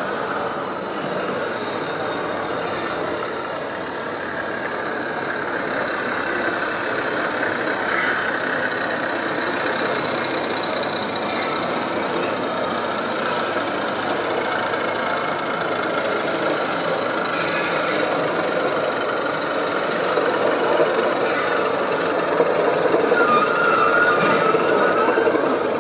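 O gauge model trains running on a large layout, a steady mechanical running sound over the background noise of an exhibition hall, growing louder near the end as a model locomotive passes close.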